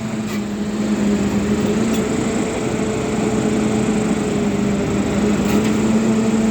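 Volvo crawler excavator's diesel engine running steadily, a low hum held throughout under an even mechanical noise.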